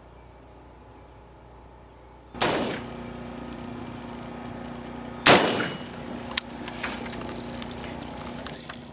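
7.62x51 mm (.308) LR308 rifle firing at a rifle armour plate: two sharp, loud reports about three seconds apart, the second the loudest, followed by a few lighter clicks.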